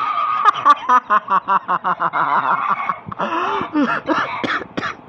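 A person laughing hard: a quick, even run of ha-ha-ha pulses, about five a second, over the first three seconds, then breaking into looser, uneven laughs.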